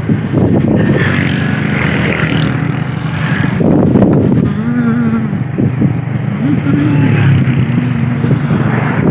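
A vehicle running, heard as steady dense low-pitched noise, with a few brief wavering pitched sounds in the second half.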